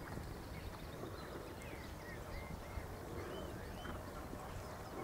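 Horse walking on grass turf, its hoofbeats soft. A few short bird chirps sound in the middle, over a steady low rumble.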